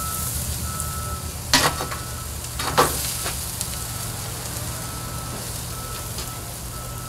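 Racks of pork ribs sizzling on a barbecue grill as they are turned with metal tongs, with two sharp clacks of the tongs on the grate, about a second and a half and about three seconds in.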